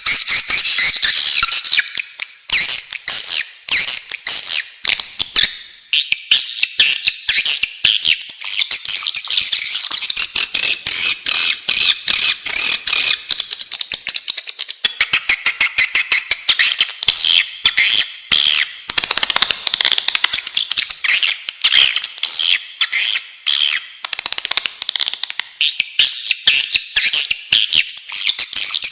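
Swiftlets twittering: a dense, continuous chatter of rapid, high-pitched chirps and trills.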